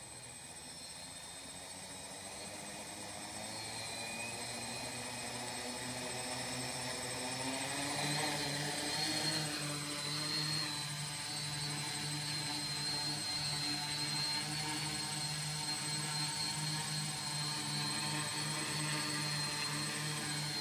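Tarot 680 quadcopter's four electric motors and propellers spooling up from the ground and lifting off. The propeller hum grows louder over the first several seconds and rises in pitch about eight seconds in, then settles into a steady buzzing hover with slight wavering.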